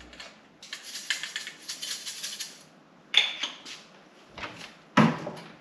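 Salt being sprinkled from a salt container: a fast run of clicks for about two seconds, then a few shorter bursts, and a sharper knock near the end.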